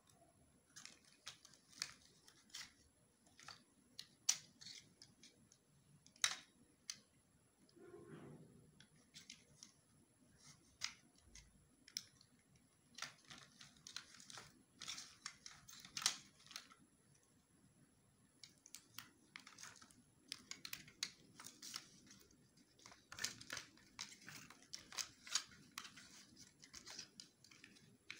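Pink plastic toy makeup compact being handled on a table: scattered small clicks and taps of plastic, coming in clusters.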